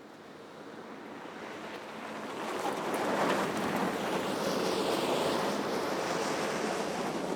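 A steady rushing noise that swells over the first three seconds or so, then holds level.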